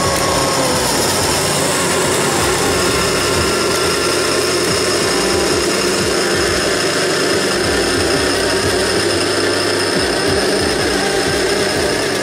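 Homemade radio-controlled snowblower tractor running steadily, its motor and blower churning snow and throwing it out of the chute.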